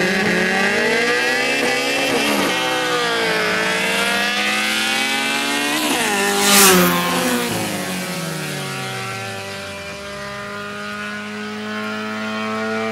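Naturally aspirated Acura and Mazda Protege engines at full throttle in a street race: the engine note rises and drops back at gear shifts as the cars close in, passes loudly about six and a half seconds in with a rush of air, then falls in pitch as they pull away.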